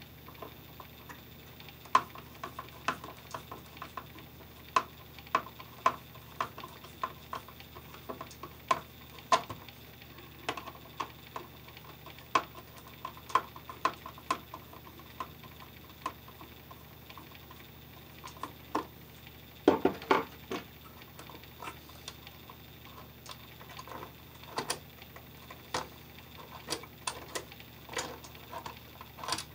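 Screwdriver working a light switch's mounting screws, with the switch handled against a plastic electrical box: irregular sharp clicks and taps of metal and plastic, and a short louder clatter about twenty seconds in.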